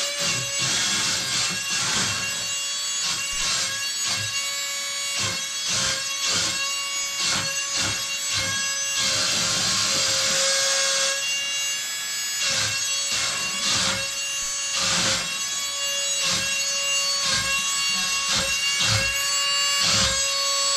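Wall-climbing RC car's suction fan running with a steady high-pitched whine, broken by frequent short bursts of motor and gear noise as the car is driven across the wall.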